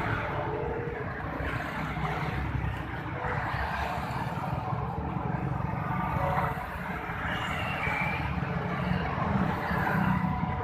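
Steady noise of road traffic passing close by.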